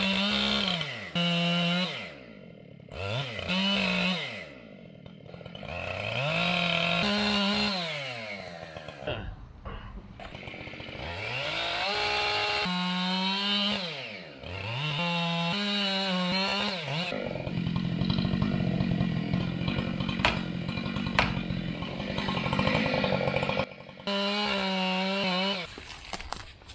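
Chainsaw cutting into a large pine, held at full revs and dropping back toward idle several times, then revving up again. About two-thirds of the way through, the cut turns rougher and noisier, with a few sharp cracks.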